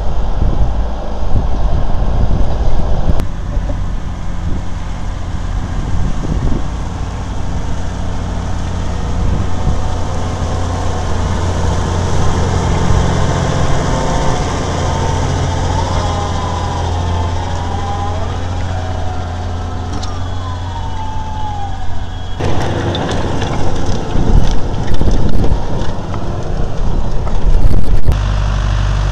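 Large tractor engines, among them a Fendt's, running steadily under load while working the field. The sound jumps abruptly several times where clips are cut together. A wavering tone rises and falls near the middle.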